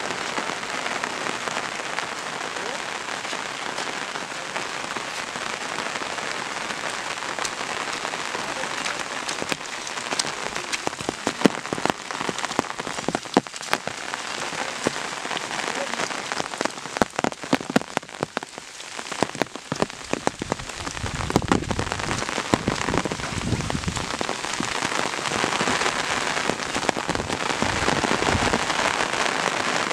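Steady rain falling on foliage and on an umbrella overhead, with many sharp drop taps, thickest in the middle. Low rumbles on the microphone come in the second half.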